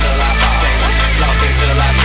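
Background music with a deep bass line that steps between held notes, and a vocal over it.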